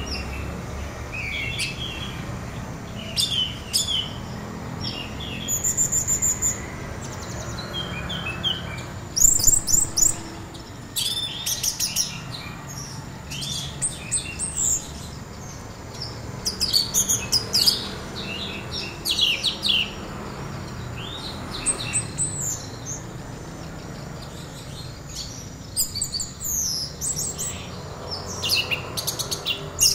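Orange-headed thrush singing in short, varied phrases of quick chirps and whistles, with pauses between them and several denser rapid runs, the 'trotol' song style that bird keepers play to prompt other anis merah to answer. A faint steady low rumble sits underneath.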